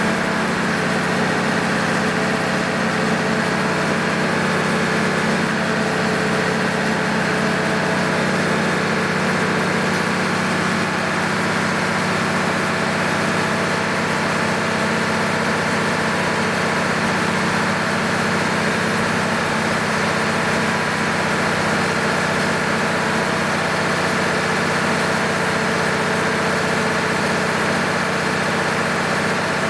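MEP-006A military generator's six-cylinder diesel engine running at a steady speed, freshly overhauled with new sleeves, pistons and bearings.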